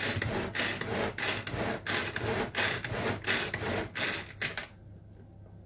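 Tupperware Extra Chef pull-cord chopper being pulled over and over, about three pulls a second, each a rasping whirr of cord and spinning blades chopping the food inside. The pulls stop a little before the end.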